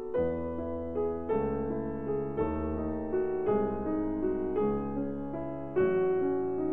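Background piano music: slow chords and notes struck about once a second, each left to ring.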